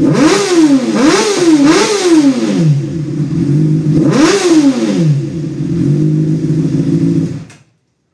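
2013 Honda CBR600RR's inline four-cylinder engine, through an aftermarket sport exhaust, idling and blipped repeatedly: three quick revs in the first two seconds and another about four seconds in, each rising and falling in pitch. The sound cuts off suddenly near the end.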